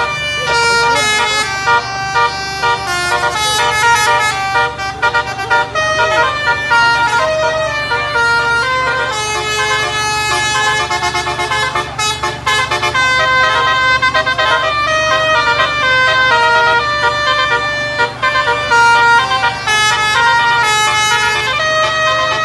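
Multi-tone 'telolet' musical air horn playing a continuous tune of stepping notes, over a steady low engine hum.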